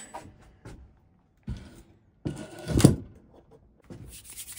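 Steel-frame machine being set down on a wooden workbench: a sharp click, a knock, then one heavy thud a little under three seconds in, followed by lighter rustling and handling clicks near the end.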